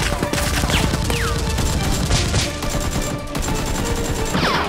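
Rapid gunfire sound effects, dubbed over Nerf blasters being fired, with a few short falling whistles about a second in and again near the end, over background music.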